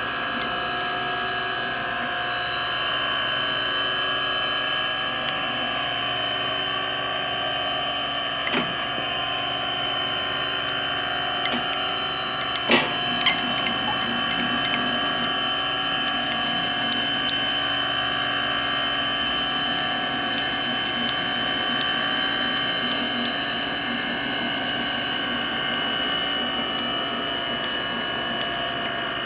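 Taft-Peirce 1 TP surface grinder running steadily, its motor giving a constant hum with several steady tones. A sharp click about a third of the way in and a couple more near the middle.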